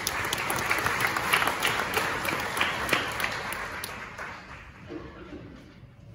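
Audience applauding, many hands clapping, loudest at first and dying away over the last two seconds.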